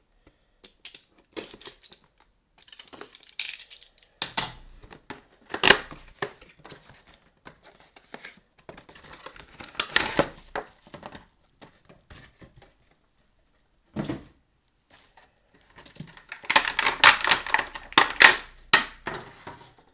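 A cardboard miniatures booster box being opened and its plastic packaging handled: irregular clicks, taps and crinkling rustles, busiest and loudest near the end.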